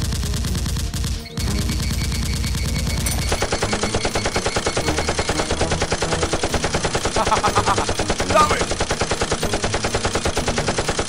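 Automatic gunfire sound effects dubbed over toy-blaster firing: sustained rapid bursts, breaking off briefly about a second in, then a fast, even rattle of shots from about three seconds on.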